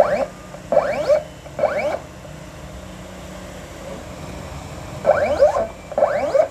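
Cutting plotter's motors driving radium sheet back and forth in short bursts, each a quick rising whine: three in quick succession, a pause, then two more near the end.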